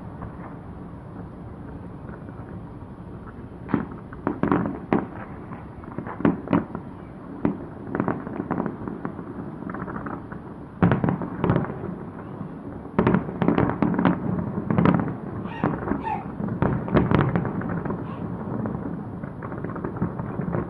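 Fireworks bursting: a steady low rumble at first, then irregular sharp bangs from about four seconds in, some coming in quick clusters, loudest around eleven seconds in and again from about thirteen to seventeen seconds in.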